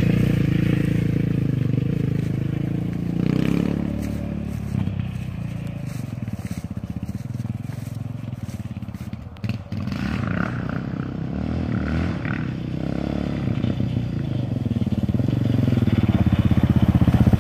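Yamaha Raptor 700R ATV's single-cylinder engine, fitted with an FMF full exhaust, running, its level rising and falling and swelling toward the end.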